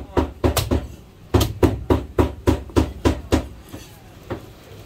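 Chinese cleaver chopping pieces of marinated goose on a cutting board: quick, even strikes about four a second, in a short run, a brief pause, then a longer run of about two seconds, and one last strike near the end.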